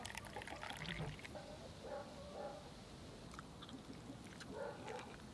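Tea pouring from a cast-iron teapot into a ceramic cup for about the first second, followed near the end by a faint bite into crusty toasted bread.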